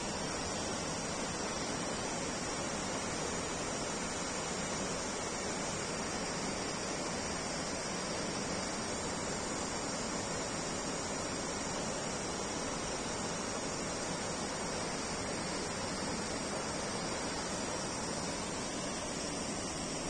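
Steady rushing of a waterfall heard from across the valley, an even noise with no breaks, with a thin steady high insect drone over it.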